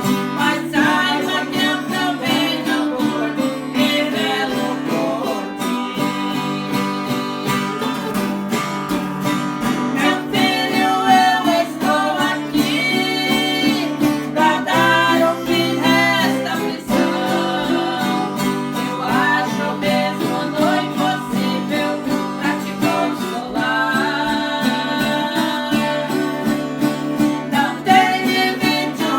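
A Christian praise song (louvor) sung to acoustic guitar accompaniment.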